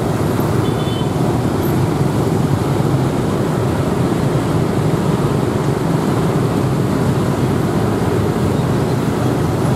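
Steady rumble of road traffic noise, even throughout with no distinct events.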